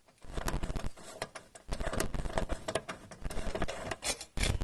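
Irregular rustling, scraping and small clicks and knocks from a hand-held camera being handled close to the microphone while tools and parts are worked on.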